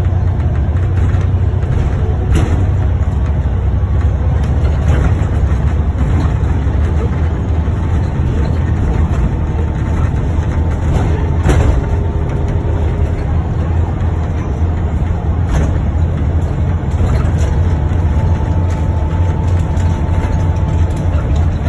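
Bus engine running, heard from inside the passenger cabin as a steady low rumble, with a few sharp clicks and knocks from the bodywork and fittings.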